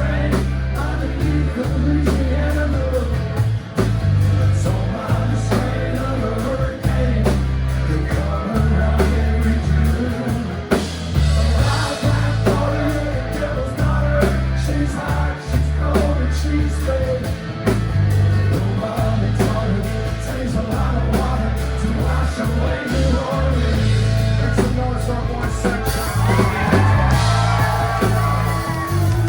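Live rock band playing loudly, with a heavy, shifting bass line under guitar and other instruments.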